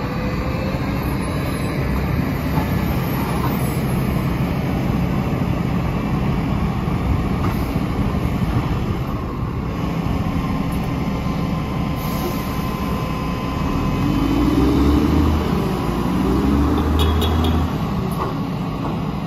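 Mack LE garbage truck's diesel engine running steadily with its hydraulics working. About two thirds of the way in the engine revs up in two surges as the front forks lift the loaded leaf box up over the cab, then drops back abruptly.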